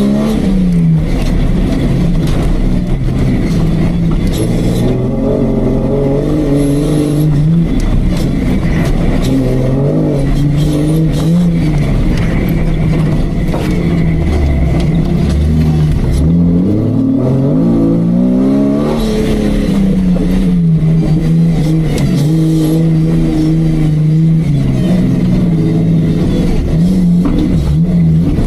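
Off-road Jeep's engine running hard under load, its revs rising and falling again and again, with a quick climb in revs about two-thirds of the way through.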